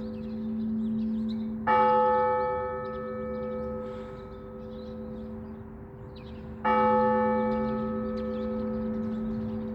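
A large Orthodox church bell tolled slowly, struck twice about five seconds apart. Each stroke rings on in a long, humming tone that never dies away before the next. This is the ringing that calls the faithful to the service.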